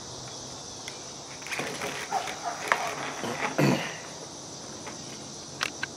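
Steady high-pitched chirring of insects, with scattered light clicks and rustles of handling through the middle.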